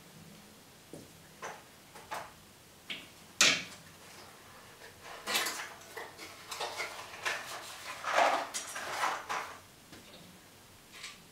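Kitchen items handled on a counter: scattered light knocks and clinks, then about halfway through a few seconds of busier clatter and rustling.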